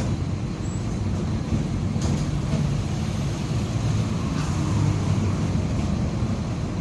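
Mercedes-Benz OF-1722M city bus under way, its diesel engine and drivetrain making a steady low rumble, with the differential growling.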